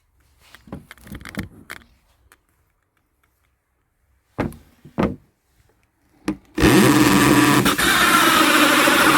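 Knocks and clatter of handling wood, with two sharp knocks midway, then an electric drill starts about two-thirds of the way through and runs steadily at full speed, cutting an entrance hole in the wooden box.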